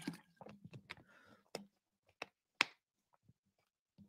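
Faint, scattered clicks and taps of a plastic water bottle being handled and set down after a drink, with one sharper click about two and a half seconds in.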